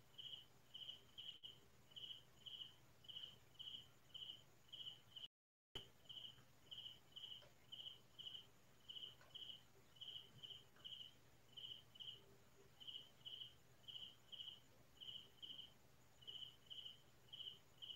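Cricket chirping in short, evenly repeated pulses at one high pitch, about two a second and often in pairs. The sound drops out completely for a fraction of a second about five seconds in.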